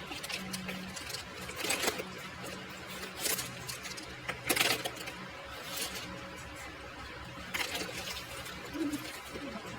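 Plastic markers and their packaging being handled, giving irregular rustles and clicks every second or two over a steady low hum.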